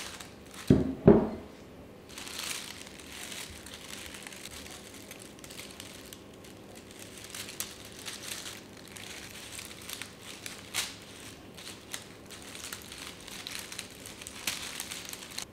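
Dry leaves and stems of a bunch of dried roses crinkling and crackling as they are handled. Two thumps about a second in are the loudest sounds.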